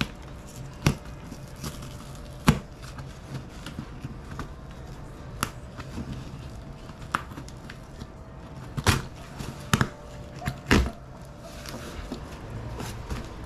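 A cardboard box and its packaging being cut open with a box cutter and handled: scattered, irregular sharp clicks and knocks, about seven loud ones, with softer rustling between.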